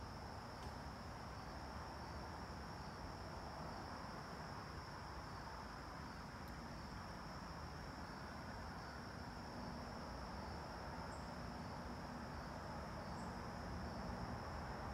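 Steady high-pitched trilling of insects, pulsing slightly, over a low even outdoor background rumble.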